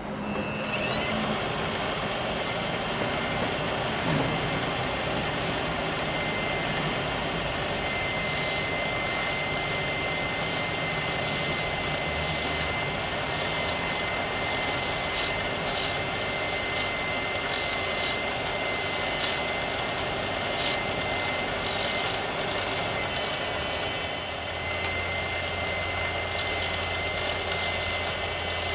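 Wood lathe switching on and running steadily with a thin high whine, while a hand-held turning tool cuts a spinning holly pen blank, giving short scraping bursts as the edge bites.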